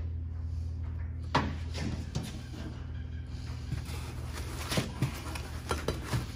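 Scattered light clicks and knocks of a wrench working bolts loose on the hood, over a steady low hum.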